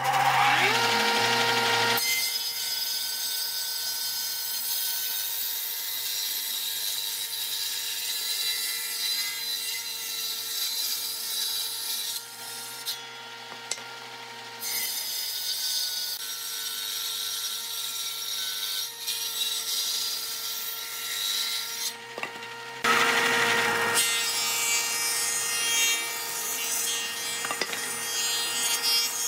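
Combination woodworking machine (circular saw table and thickness planer) spinning up with a rising whine in the first second, then running with a steady whine while boards are sawn and planed. The cutting noise changes abruptly several times.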